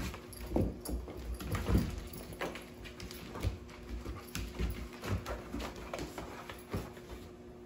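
A Siberian husky and a sheprador puppy play-fighting: irregular scuffling, thumps and claws on a wooden floor, with a few short growls.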